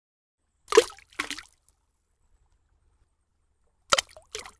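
Cartoon splash sound effects of an egg dropping into a bucket of paint. There are two short bursts of splashing, each a double splash, about three seconds apart.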